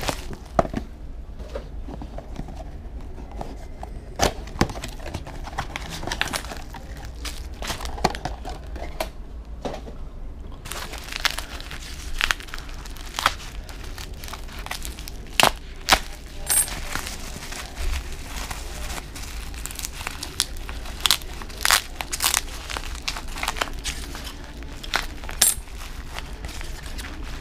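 Plastic bubble wrap crinkling and crackling as hands turn it over and cut into it with a utility-knife blade, giving irregular sharp crackles and snaps that come thicker in the second half.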